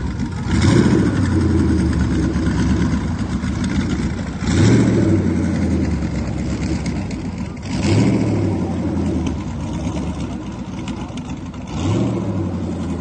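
Twin-turbocharged 5.3-litre LS V8 in a jet boat running with a choppy, uneven idle, blipped up in four short revs about every four seconds. The engine breaks up and chops as if it had a big cam though it has a stock cam, a sign that it still needs tuning.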